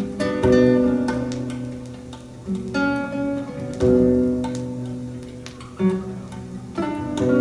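Acoustic guitar music playing over a high-end stereo system's Focal floor-standing loudspeakers. Plucked and strummed chords come every second or so, each ringing out and fading.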